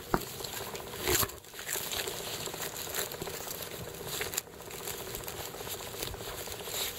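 Dry leaf crinkling and crackling as puppies chew and tug at it in the grass, with louder crackles about a second in and again past the middle.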